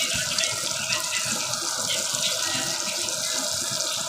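Fish frying in hot oil: a steady sizzle with many small crackles and pops.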